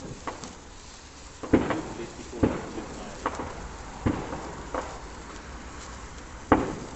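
Fireworks exploding: about seven sharp bangs at uneven intervals, each with a short echo, the loudest about a second and a half in and near the end.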